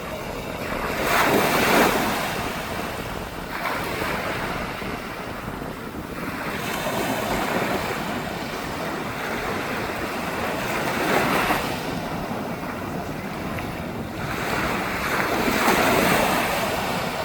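Ocean surf breaking on a beach: waves crash and wash in about every three to four seconds, the loudest near the start and near the end, with wind buffeting the microphone.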